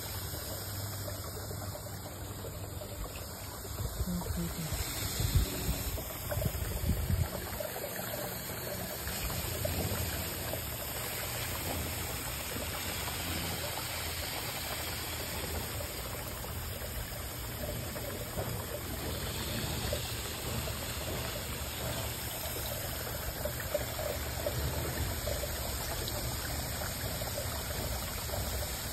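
Water steadily trickling and splashing into a garden pond, with a few louder low bumps about five to seven seconds in.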